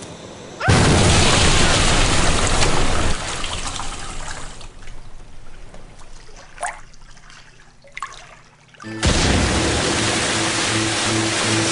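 A sudden loud burst about a second in as a bathroom wall blows open under water pressure. A rushing hiss of water follows and slowly dies away with a few knocks and drips. Near the end, pressurised water jets burst out in a second loud rushing spray, with music coming in under it.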